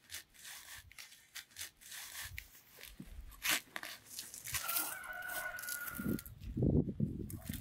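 Rooster crowing once around the middle, a single held call in the background, over the scraping and crunching of a hand trowel digging in garden soil, with dull thuds near the end.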